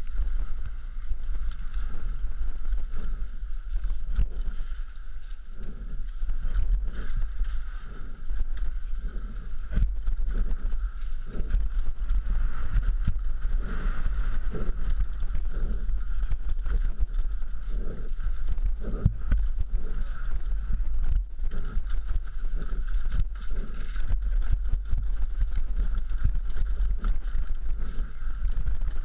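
Wind rumbling on a helmet-mounted camera's microphone as a downhill mountain bike descends a rough dirt trail, with frequent rattles and knocks from the bike over roots and rocks throughout.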